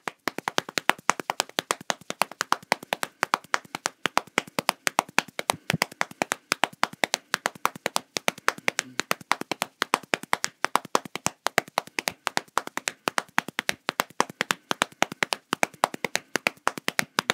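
A fast, uneven run of sharp claps, several a second, over a faint steady hum.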